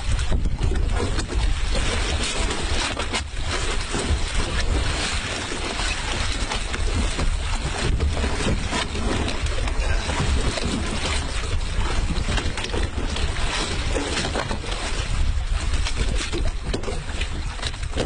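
Wind buffeting the microphone aboard a boat on the open sea: a steady rush of noise with a heavy low rumble.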